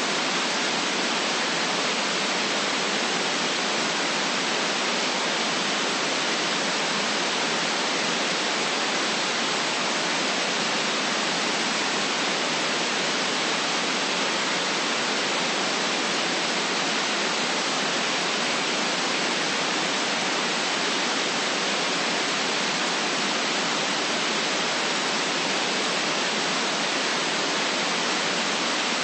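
Steady static hiss: an even, unchanging noise that is thin in the bass and stops sharply around 9 kHz.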